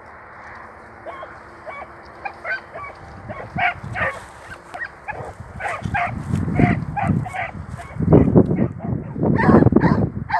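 An animal's short, repeated calls, yelps or honks, coming faster and louder as they go on. From about six seconds in there is heavy low rumbling on the microphone.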